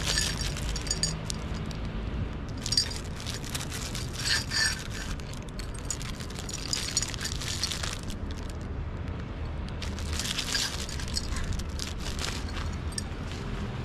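Plastic packaging wrap crinkling and rustling in several bursts as it is pulled open by hand.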